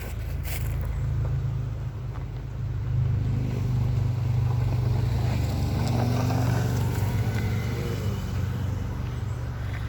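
A car driving past: engine and tyre noise build to a peak about six seconds in, then fade as it moves away.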